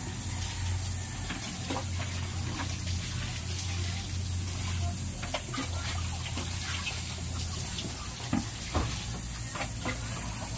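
Water poured from a plastic dipper onto potted plants, splashing onto leaves and soil, with a few light knocks, over a steady low hum.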